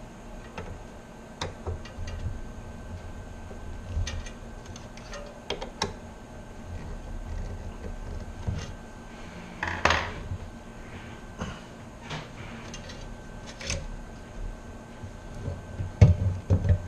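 Intermittent clicks and light clattering of small hard parts being handled during a CPU cooler install, with a louder clatter about ten seconds in.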